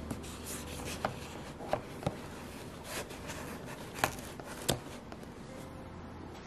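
Handling sounds from packing a picnic bag: a few sharp clicks and taps as a plastic cup and food container are set in place, the loudest about four seconds in.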